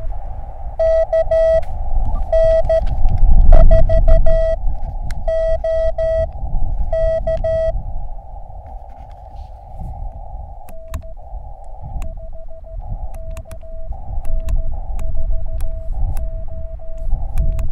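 Morse code (CW) from an Elecraft KX2 transceiver: a steady single-pitch tone keyed on and off in dots and dashes over a band of receiver hiss, during an on-air contact. It is louder for the first half, then comes back fainter with quicker keying and sharp static clicks, over a low rumble.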